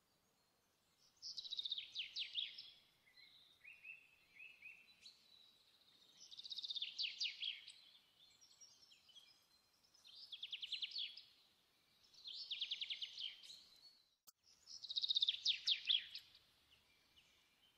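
Bird song: a songbird repeating a short phrase of rapid notes that falls in pitch, five times, a few seconds apart. A single faint click comes near the end.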